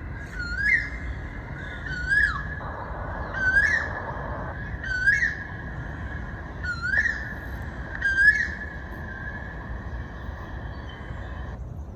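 A bird calling over and over, a short swooping note that rises and then drops, about every one and a half seconds, six times, then falling silent. Wind rumbles on the microphone underneath.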